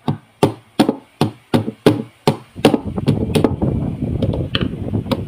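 Small hammer tapping a pin punch in steady strikes, about three a second. After about two and a half seconds it gives way to quicker, lighter knocking and rattling.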